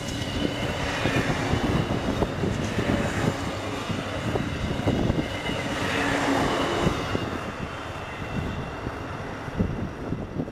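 A three-unit DB Class 628 diesel railcar train passing through at speed without stopping. It is a steady rushing of engines and wheels on the rails, loudest about six seconds in.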